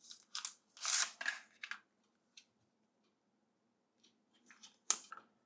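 Thin plastic wrapping crinkling and rustling as it is pulled off a TV remote, in several short bursts during the first two seconds. After a pause come a few light crackles and one sharper crackle near the end.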